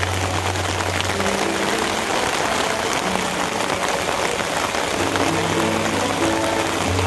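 Steady rain pouring down, an even hiss, with a choir faintly holding sustained low notes near the start and again from about five seconds in.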